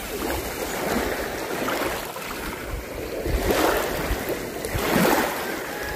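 Waves washing onto the shore, swelling and fading a few times, with wind rumbling on the microphone.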